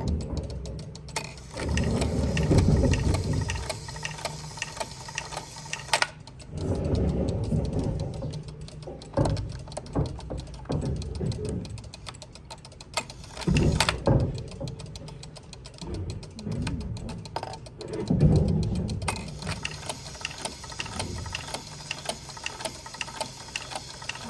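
Old Regula cuckoo clock movement running: rapid mechanical clicking throughout, broken by several louder stretches of low whirring and rattling from the works.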